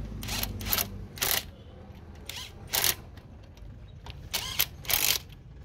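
Cordless impact wrench running on a car wheel's lug nuts in a series of short bursts, each a fraction of a second, as the trigger is pulled again and again.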